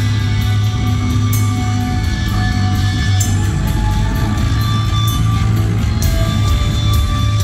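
Live hardcore band playing loud: distorted guitar and bass over drums, with cymbal crashes about a second, three seconds and six seconds in, heard from the crowd.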